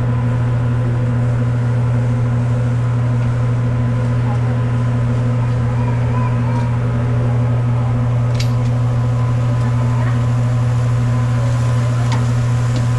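Steady low hum at an even level, with a few light clicks about eight seconds in and near the end.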